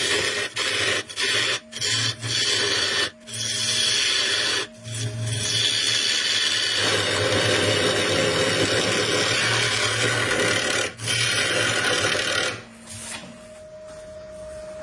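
Wood being worked with a tool: a harsh rasping scrape, broken off several times in the first few seconds, then running unbroken for about six seconds before stopping near the end. A quieter steady hum remains after it stops.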